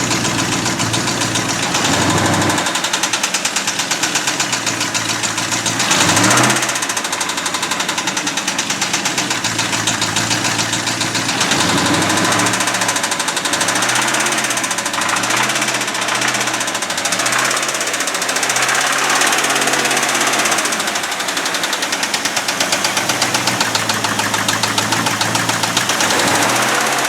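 1989 Ford F-250's 5.8-litre Windsor V8 running with a loud knock, its engine speed rising and falling as the throttle is worked, with a sharp rev about six seconds in and a run of short revs in the middle. The knock doesn't sound healthy at all.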